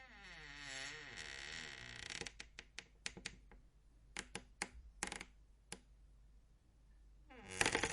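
A door creaking: a drawn-out creak wavering up and down in pitch, followed by a scattered series of sharp clicks and knocks. Near the end a much louder creak starts, pulsing rapidly.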